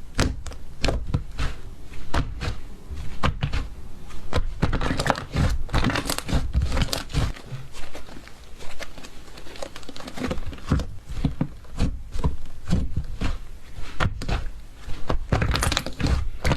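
Hands squeezing, poking and stretching slime, giving a steady stream of irregular crackles and small pops.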